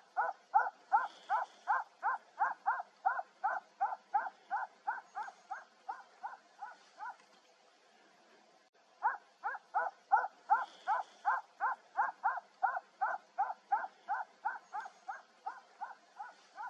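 A hunting dog barking in a steady, rapid run of about three barks a second. The barking stops for about two seconds in the middle, then starts again at the same pace.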